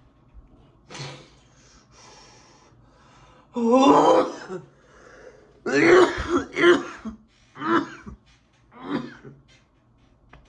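A man coughing hard several times and clearing his throat after a hit from a cannabis wax disposable vape pen. The first loud cough comes about a third of the way in, then a quick run of coughs, then two weaker ones near the end.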